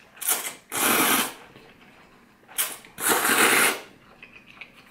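Ramen noodles slurped from the bowl: two long airy slurps about two seconds apart, each led by a short one.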